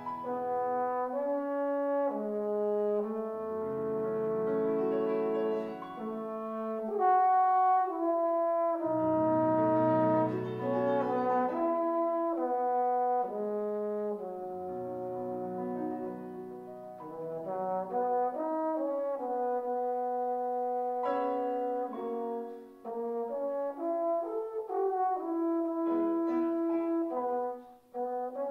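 Trombone playing a slow, lyrical solo melody of held notes moving from pitch to pitch, with short breaks between phrases in the last few seconds.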